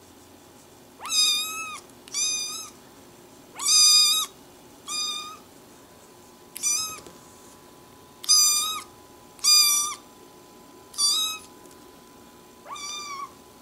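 A kitten meowing nine times in a row, short high meows at intervals of roughly one to two seconds, asking to be fed.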